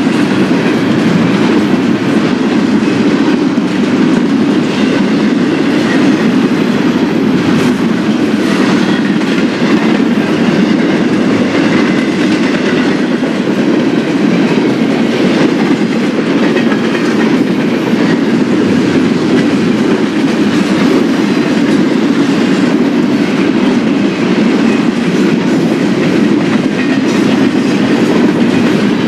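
Freight cars of a BNSF Z-train (a priority intermodal train) rolling steadily past, giving a continuous rumble of steel wheels on rail.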